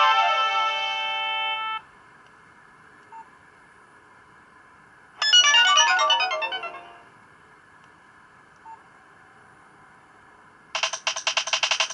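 Nokia 2865i CDMA phone playing its stock polyphonic MIDI ringtones and alert tones from the S40 soundfont. A held synth chord fades out about two seconds in, a quick descending run of notes comes in the middle, and a fast stutter of short beeps starts near the end.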